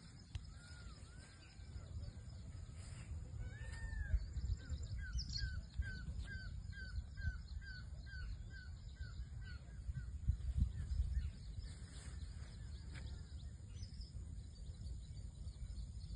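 A bird calls a quick run of short, arching notes, about three a second, for several seconds in the middle, over a steady low rumble.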